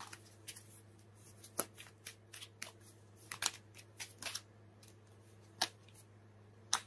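Tarot cards being shuffled and handled: a string of irregular short snaps and flicks of the cards, with the sharpest near the middle and the end, over a faint steady hum.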